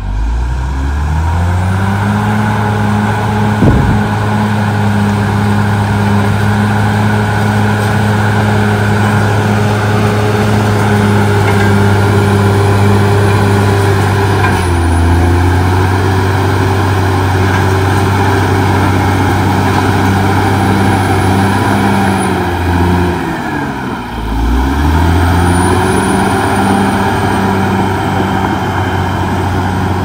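CAT D6R XL bulldozer's diesel engine revving up and then running steadily under load as it pushes soil, with a thin high whine over it and one sharp knock a few seconds in. About halfway through the engine note steps down, and a few seconds before the end it dips deeply and climbs back up.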